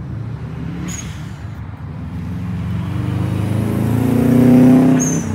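Subaru Impreza WRX's turbocharged flat-four engine running as the car drives past on the track. It grows louder as the car approaches, is loudest just after four seconds in as it goes by, then falls away.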